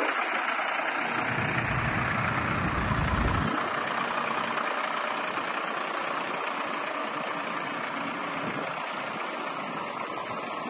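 Iveco 6x2 crane lorry's diesel engine idling steadily, with a low rumble swelling in about a second in and stopping after a couple of seconds.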